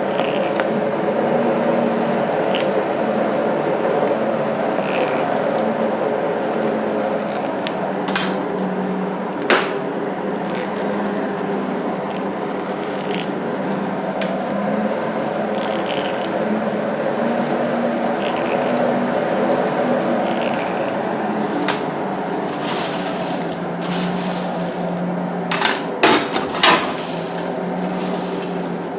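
Hand-cranked forge blower whirring steadily, its hum rising and falling a little with the cranking speed, feeding air to a coal fire. A few sharp metallic clinks of tools against the forge come through, two near the start and a cluster near the end.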